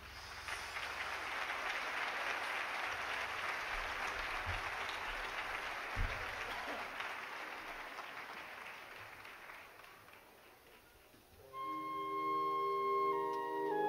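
Audience applauding, dying away gradually, before the concert band starts again near the end with soft held woodwind chords.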